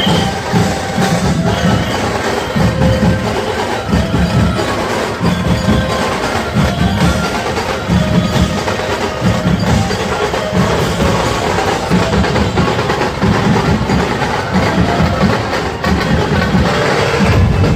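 Loud street-procession drumming: dhol drums beating out a driving rhythm of deep thumps, several a second, with sharp clattering percussion over the top.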